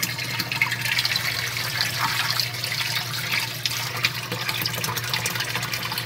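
Air from an aerator line bubbling and splashing steadily in a shallow tank of koi, over a steady low hum.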